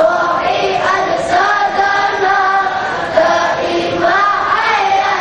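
Group of boys chanting a sung prayer together in unison, long held notes that bend up and down in pitch.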